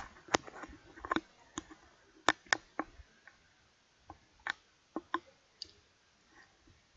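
A computer mouse clicking about a dozen times at an irregular pace, sharp separate clicks that thin out in the second half.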